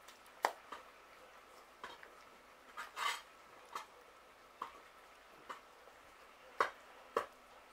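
Several cats eating from a shared plate: irregular crisp clicks and crunches as they chew and their teeth knock the dish, loudest in a cluster about three seconds in. A faint steady high hum runs underneath.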